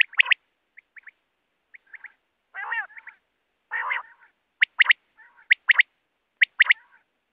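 Common quail calling: several sharp three-note "wet-my-lips" phrases, repeating about once a second in the second half, after two lower nasal notes a little after 2.5 s and near 4 s in. This is the male's song.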